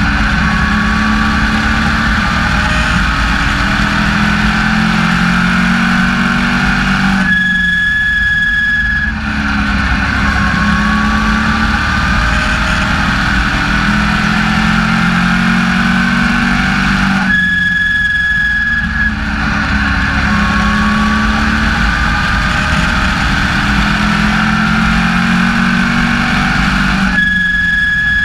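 In-car sound of an SK Lite Modified race car's engine running hard at racing speed. Three times, about ten seconds apart, it eases off for a second or two, and a steady high whine comes through while it is off the throttle; then the revs climb again.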